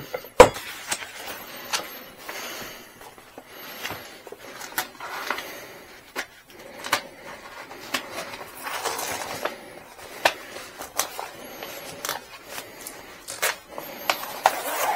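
Rustling and crinkling of a large vinyl decal sheet being handled, with scattered sharp clicks and knocks, one loud one about half a second in.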